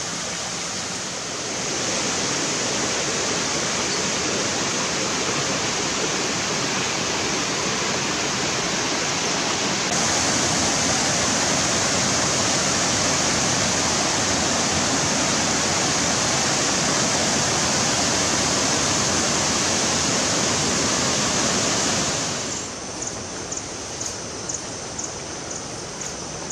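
Steady rushing water, like a waterfall or fast stream. It grows louder twice, then drops off suddenly near the end to a quieter hiss with faint, regular high ticking.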